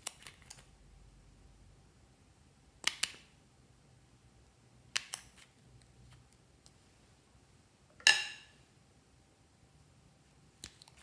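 Nail polish bottles and their caps being handled: about five short sharp clicks and clinks spaced a couple of seconds apart, several of them doubled. The loudest, about eight seconds in, is a glassy clink with a brief ring.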